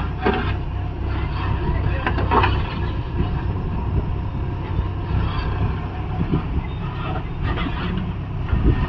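Sonalika 60 hp tractor's diesel engine running steadily, with a few brief voices over it.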